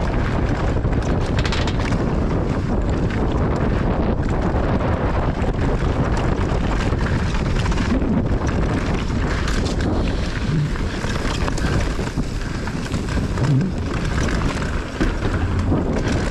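Wind buffeting the microphone of a mountain bike descending a dirt freeride trail at speed, over tyre noise and frequent short knocks and rattles from the bike over rough ground.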